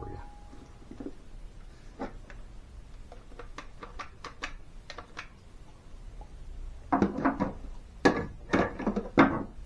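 Light handling noise: scattered clicks and knocks of metal and plastic, growing into a denser clatter for a couple of seconds near the end, as the smoke tester's leads are clipped onto the battery terminals.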